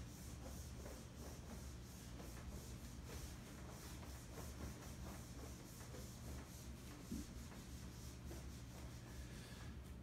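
Cloth wiping marker ink off a whiteboard: a quick, faint run of repeated rubbing strokes.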